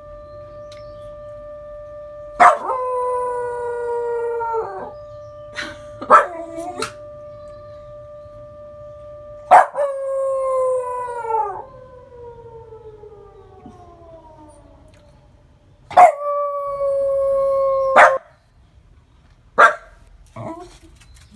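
A Welsh Corgi mix howls along to a civil-defence siren. The siren holds a steady tone, then winds down and fades out about two-thirds of the way through. The dog gives three long howls, each sliding slightly down in pitch, with a few short sharp barks between them.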